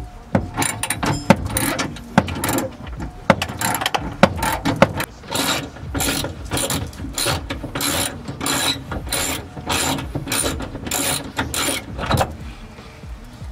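Hand ratchet wrench clicking, first in irregular strokes mixed with knocks of tools against the car's interior, then in an even run of short strokes about twice a second from about five seconds in.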